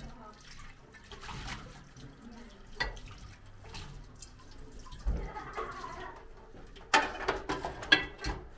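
Kitchen tap running water into a stainless-steel sink while a pot and bowl are rinsed, with several sharp knocks and clanks of the dishes against the sink, the loudest two near the end.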